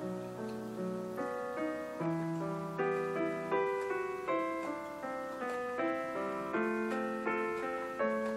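Background piano music: chords and a melody, notes struck and fading, several sounding at once.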